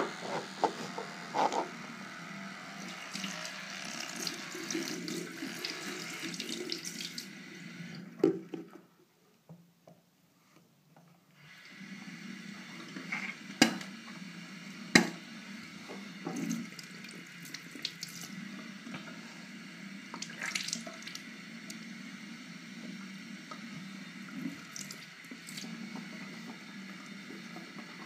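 Bathroom tap running into a sink, with a few sharp knocks and clicks against the basin. About nine seconds in the sound drops to near silence for a couple of seconds, then the running water resumes.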